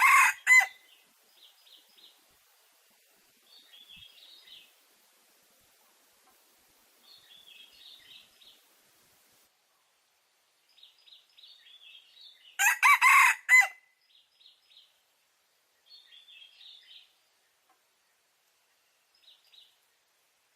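Chicks peeping faintly in short clusters of high cheeps every few seconds. A loud chicken call, about a second long, cuts in at the very start and again about 13 seconds in.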